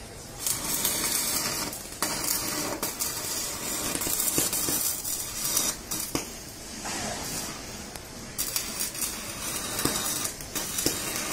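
Electric arc from an ARC 200 PRO stick welder crackling and sizzling as it cuts through metal, throwing sparks. The arc runs in bursts of a few seconds with short breaks between.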